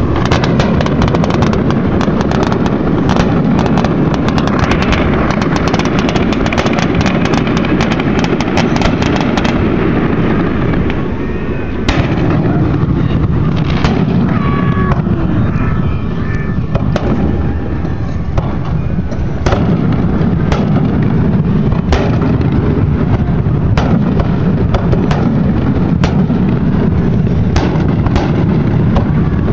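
Aerial fireworks display. Dense rapid crackling of many small bursts fills the first ten seconds or so. After that, single shell bursts bang about every one to two seconds, all over a steady low rumble.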